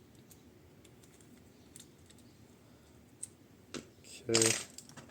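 A few sharp clicks and taps of small rifle parts and a hand tool being handled, with a louder pair of clicks about three and four seconds in; a spoken "okay" near the end.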